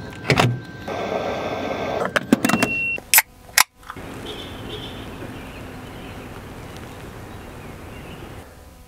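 Clicks and handling noises, a second of steady hiss and a short high electronic beep. Then, after a sudden cut, the steady low hum of vehicles moving slowly through a car park.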